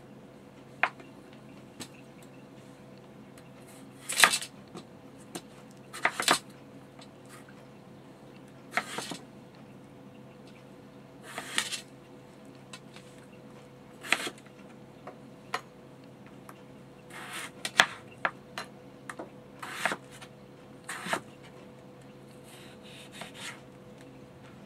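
Chef's knife slicing yellow potatoes on a plastic cutting board: irregular cuts and knocks of the blade against the board every couple of seconds, with a quicker cluster about two-thirds of the way through.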